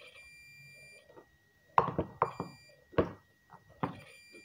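SD 9205A digital multimeter's continuity buzzer beeping: a steady high beep for about a second, then again briefly near the end, as the test probes make contact through the extension socket's earth. The beep signals continuity, that the extension is grounded. Sharp clicks and knocks from the probes and leads being handled fall between the beeps.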